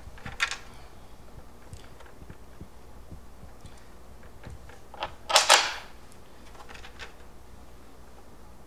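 Bolts, washers and nuts being handled and fitted through the trunk box and rear rack mounting holes: scattered light clicks and knocks, with a louder clatter about five and a half seconds in.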